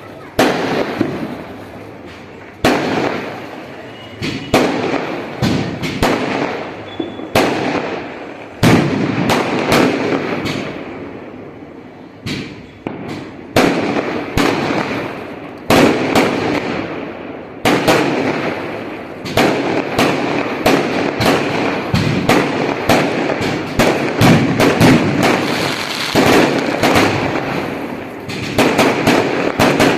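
A long run of loud, sharp bangs, each followed by a reverberant decay. They come every second or two at first and grow more frequent in the second half.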